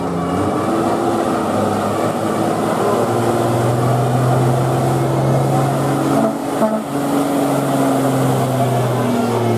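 A large bus's engine running over road noise, its note rising and falling as it revs.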